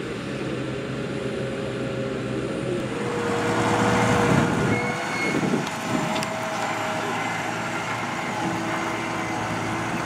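New Holland T7.270 tractor's six-cylinder diesel engine running steadily under load while pulling a reversible plough through the soil, louder for a few seconds from about three seconds in.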